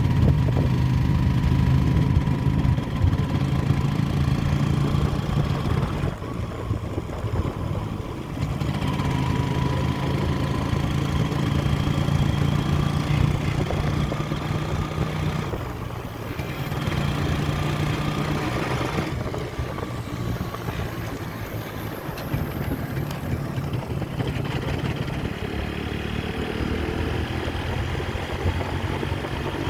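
Yamaha RX 135 motorcycle's two-stroke single-cylinder engine running through its stock exhaust. It is held at higher revs for a few spells of several seconds, dropping back toward idle between them.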